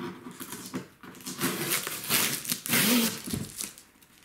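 Packing tape being ripped off a cardboard shipping box: a run of scratchy tearing noises in several pulls, ending about three seconds in.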